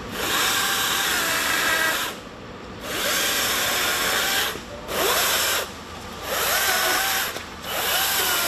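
DeWalt electric chainsaw cutting through fallen tree branches in five runs of one to two seconds, separated by short pauses. Its whine dips and recovers in pitch as the chain bites into the wood.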